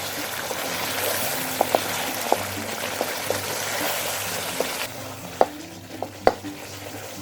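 Chicken korma masala frying and sizzling in oil in a karahi as it is stirred, a spoon clicking against the pan now and then. The sizzling drops away about five seconds in, leaving a few louder knocks of the spoon.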